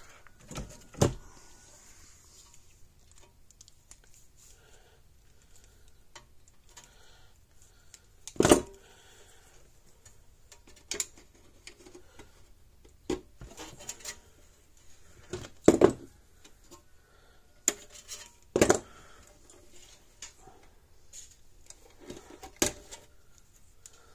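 Hand tools and small parts handled on a workbench during wire prep: scattered light clicks and rattles, with about five louder knocks spread out.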